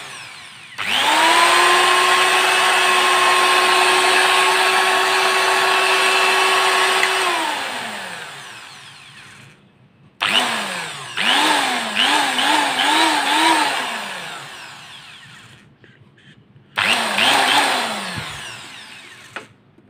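Corded electric hand drill with a brushed motor, running unloaded in the air. It spins up about a second in, runs steadily for about six seconds and winds down. Then the trigger is pulsed, so the motor revs up and down several times, with one more short burst and wind-down near the end.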